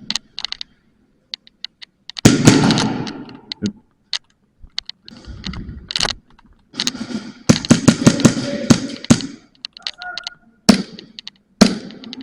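Airsoft guns firing: scattered single shots with two longer stretches of rapid shots, about two seconds in and again from about seven to nine seconds in.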